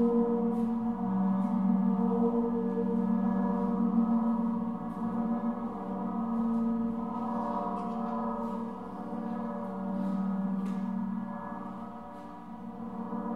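Ambient drone music: many sustained ringing tones held together, swelling and easing every few seconds.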